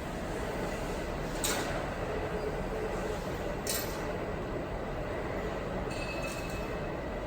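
Steady mechanical hum from running machinery, with two sharp clicks about two seconds apart.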